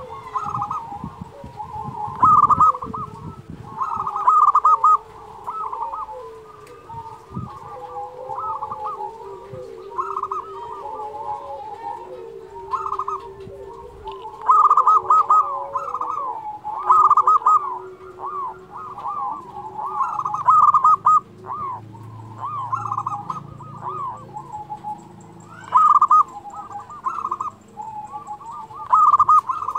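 Zebra dove (perkutut) in full song: loud phrases of quick, staccato cooing notes, a new phrase every couple of seconds, over softer, lower cooing running beneath.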